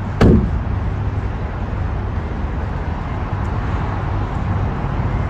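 Steady outdoor street noise with a heavy low rumble, with a short falling tone about a quarter-second in.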